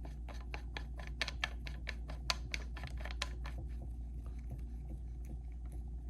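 Plenum being screwed by hand onto the Umarex Notos air rifle: a run of quick light clicks and ticks from the parts and threads turning, several a second, thinning out and growing fainter about halfway through.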